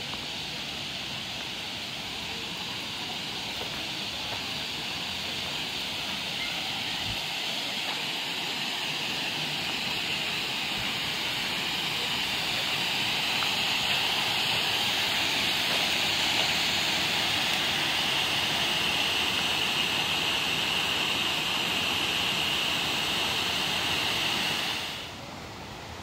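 Waterfall cascading over layered rock ledges into a shallow pool: a steady rush of falling water, growing louder toward the middle and dropping off suddenly near the end.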